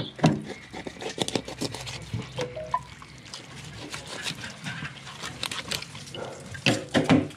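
Knife cutting raw longfin tuna flesh away from the backbone: a run of wet squelches and small clicks, with a louder flurry near the end.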